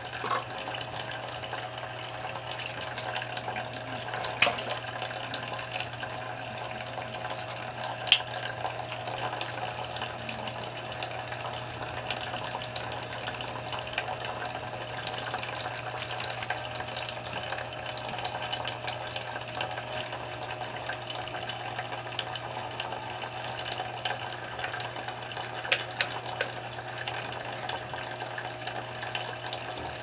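Small homemade plastic-bottle fountain running: water trickling and splashing steadily into the jar, with a low steady hum from its small motor pump. A few light clicks of plastic being handled, about four seconds in, at eight seconds and near the end.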